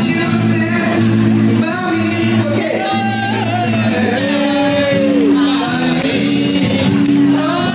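Live band performance: a male vocalist sings into a microphone over acoustic guitar accompaniment, amplified through the stage PA.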